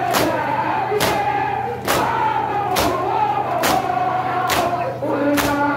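Mourners doing matam, striking their chests in unison at a steady beat of about one blow a second, under a chanted nauha lament sung by male voices.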